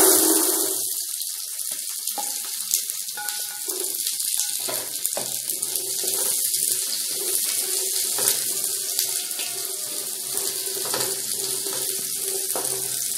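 Shallots sizzling in hot coconut oil, a steady frying hiss that is loudest just as they are poured in. A wooden spoon scrapes and clicks against the pan as they are stirred.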